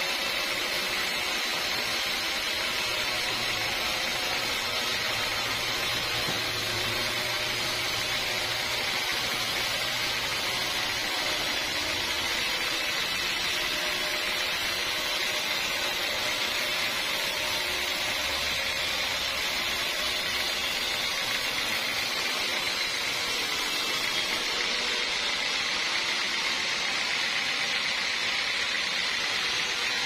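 Sawmill saw running steadily while it cuts a large teak log: a constant high-pitched machine noise with a faint low hum underneath.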